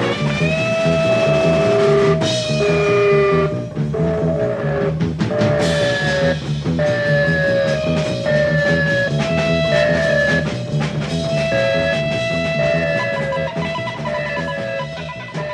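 Psychedelic rock music: an electric guitar melody of notes that slide downward, over drums and bass, starting to fade out near the end.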